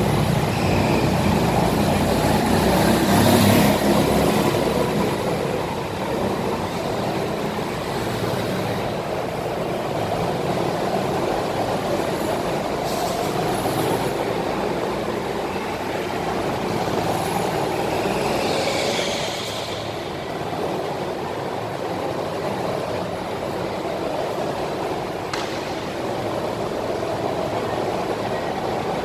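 Go-karts running laps on an indoor track, giving a steady mechanical drone. A few brief higher squeaks stand out about 3 s in, around 13 s and again near 19 s.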